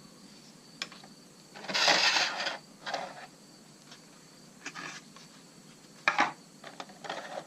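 Unboxing handling noise from packaging and small mount parts. A rustling scrape comes about two seconds in, followed by scattered clicks and taps, with a sharp click about six seconds in.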